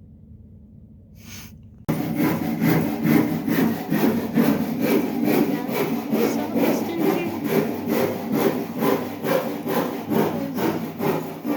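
Hand saw cutting through wood in steady back-and-forth strokes, about two or three a second, starting suddenly about two seconds in after a faint low rumble.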